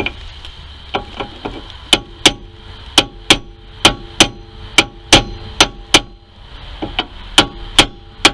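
Hammer blows on a steel punch held against a 2005 Honda Element's rear wheel hub. A few light taps come about a second in, then a steady run of sharp metallic strikes, about three a second, each with a short ring.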